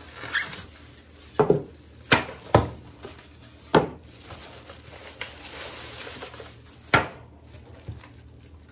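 Unpacking of a small electric mini pancake maker: a few sharp knocks and clunks as the plastic appliance and its styrofoam packing pieces are handled and set down on a counter, with plastic wrapping rustling about halfway through.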